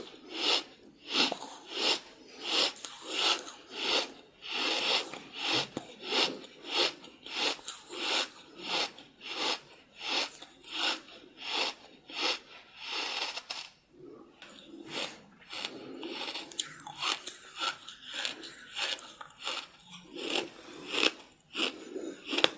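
Close-up crunchy chewing in a steady rhythm of about two chews a second, with a short pause about two-thirds of the way through.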